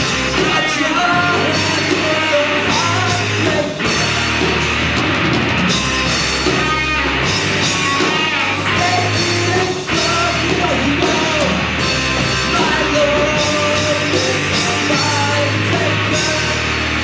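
A rock band playing live, with a voice singing over the band.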